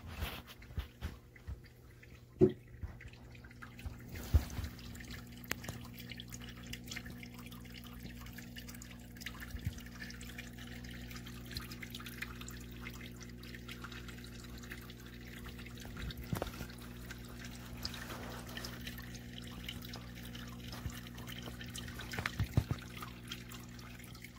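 Water dripping and trickling from a pump-fed perforated drip pipe onto moss and rocks and into the tank water: irregular drips, a few of them louder, over a steady low hum.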